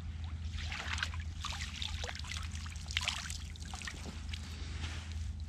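Water streaming and dripping off the mesh of a landing net as it is lifted out of the water, a dense patter of drips and small splashes that thins out near the end, over a steady low rumble.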